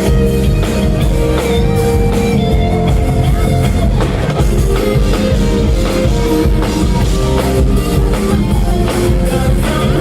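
Live band music with drums and guitar, played loud and recorded on a phone's microphone.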